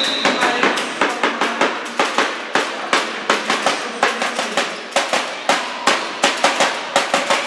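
A steady run of sharp bangs, about three a second, each echoing around the sports hall.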